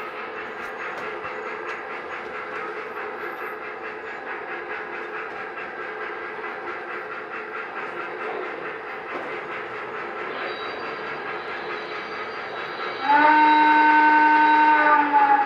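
Lionel O-gauge model steam locomotives running on three-rail track, with the steady rolling of wheels and a faint even rhythm throughout. Near the end, a locomotive's sound-system steam whistle blows one long chord of several notes, the loudest thing here, dipping slightly in pitch as it trails off.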